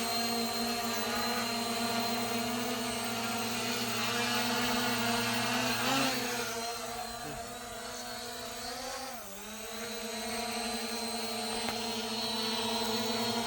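A P11 GPS quadcopter drone's brushless motors and propellers whirring steadily in a hover, a buzzing hum with a steady pitch. Its pitch wavers briefly about six and nine seconds in, and the hum drops a little in loudness between the two.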